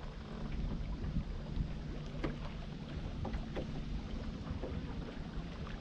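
Wind buffeting the microphone and water lapping against a drifting small boat, a steady low rumble, with a few short light clicks and taps scattered through the middle.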